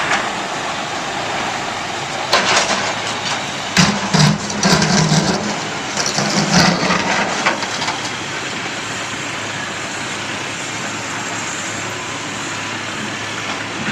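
Diesel heavy equipment running steadily, with a cluster of knocks and clatter from about two to seven seconds in.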